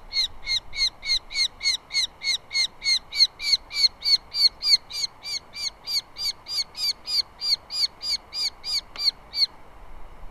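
Osprey calling a rapid series of short, high whistled chirps, about three a second, which stop about nine and a half seconds in.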